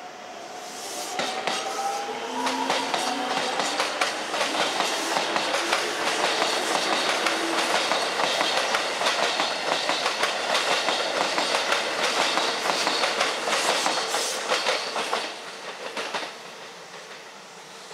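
Keikyu 600-series electric train pulling away past the end of the platform. A whine rises in pitch during the first couple of seconds as it accelerates, then a long run of wheel clatter over rail joints and points as the cars go by. The sound drops off sharply near the end as the last car clears.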